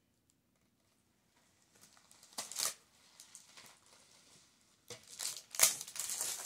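Packaging being torn off by hand: tape ripping and plastic wrapping crinkling. There is a short loud burst about two and a half seconds in, then a run of louder rips and rustles from about five seconds in.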